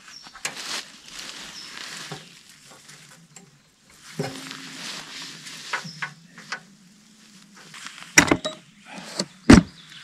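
Hand tools clicking, scraping and clinking on a moped's rear wheel while the chain is adjusted, with two sharp metal knocks near the end.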